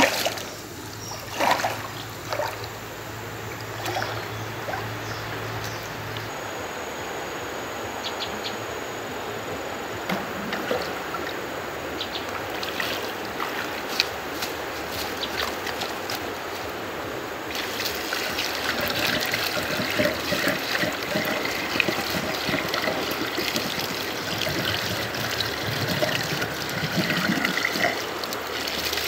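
Water splashing as someone wades in a shallow stream, followed by steady trickling and pouring of water.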